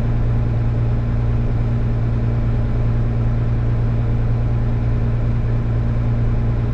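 Case IH 2388 combine running steadily while cutting wheat: a constant low engine drone with a steady hum above it.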